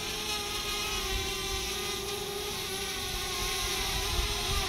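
DJI Spark quadcopter's propellers buzzing steadily as the small drone runs its motors, the pitch wavering only slightly.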